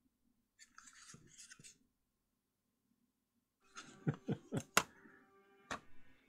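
Plastic gaming mice handled and set down on a cutting mat: a soft rustle, a pause, then several sharp clacks about four to six seconds in, with faint music tones beneath.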